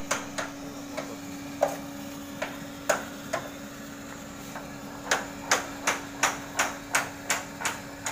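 Small electric blower on a gas-fired drying oven's firebox running with a steady hum. Sharp knocks sound over it, a few at uneven intervals and then about three a second in the second half, like hammering.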